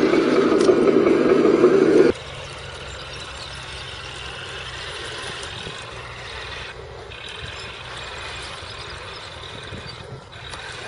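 Radio-controlled model tanks running, with the electronic engine sound of their sound units. Loud at first, it drops suddenly about two seconds in to a quieter, steady level.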